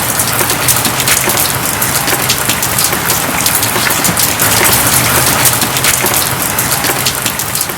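A steady, loud hiss dense with fine crackles, like a rain or fire sound effect, cutting in suddenly out of silence.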